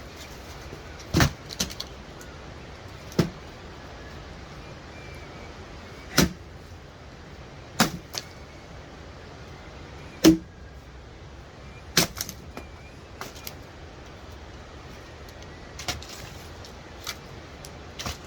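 About a dozen sharp, short knocks at irregular intervals over a steady hiss, the loudest about ten seconds in.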